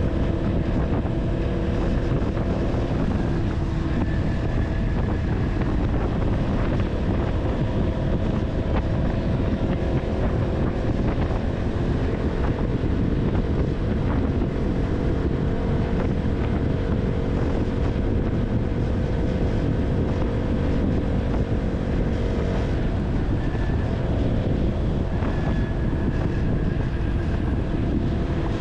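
KTM Duke 200's single-cylinder engine running steadily while riding, with wind noise on the microphone and a constant road rumble; the engine note drifts slightly up and down with speed.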